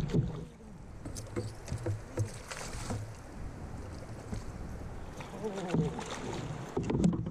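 A hooked smallmouth bass splashing and thrashing at the surface beside a kayak, with water sloshing and a few sharp knocks.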